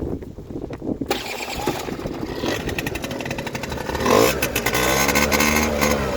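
PGO PMX50 two-stroke scooter engine being started on gas sprayed into it, catching about a second in and running, then revving up and back down near the end. It will not start unless fed gas this way, which points to fuel not reaching the engine through its line.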